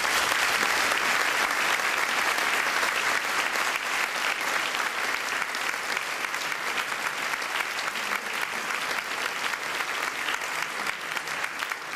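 Audience applauding: dense clapping from many hands that starts loud and slowly tapers off.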